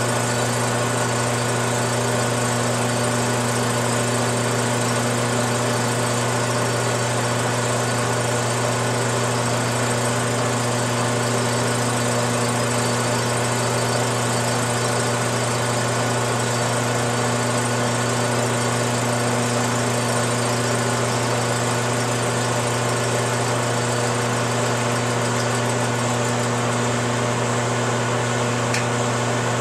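Metal lathe running steadily under power feed with a constant motor hum while a cutting tool takes a light facing cut across a 50cc two-stroke four-wheeler cylinder head. The cut trues the head's warped, dished gasket face flat so that it seals and holds compression.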